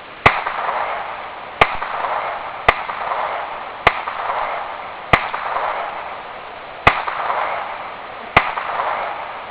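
Seven shots from a Ruger Mk II .22 semi-automatic pistol, fired one at a time about every one to one and a half seconds, each followed by a short fading echo.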